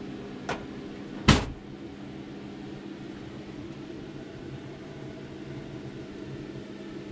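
A steady mechanical hum from a running appliance or fan, with a small knock about half a second in and a loud, sharp knock just over a second in.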